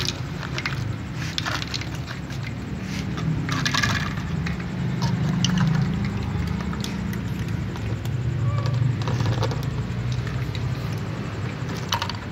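Dry cat kibble rattling in a plastic container and spilling into glass bowls in scattered clattering bursts, over a steady low rumble.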